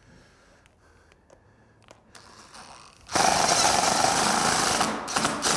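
Cordless DeWalt 20V impact driver driving a screw through the sheet-metal spring cleat: a soft start about two seconds in, then loud rapid hammering for about two seconds as the screw is run home, easing off near the end.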